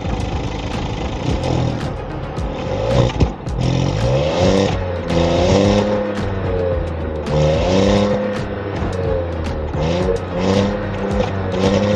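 Honda City 1.0 turbo three-cylinder engine being revved through its exhaust, the pitch rising and falling over and over.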